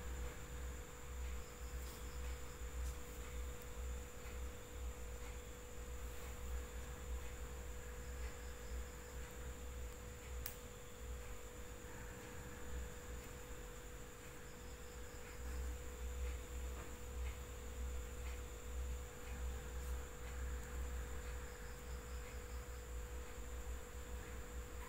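Quiet room tone with a faint, steady electrical hum held on one mid-pitched note and a fainter high whine, over a low rumble; a few faint soft ticks now and then.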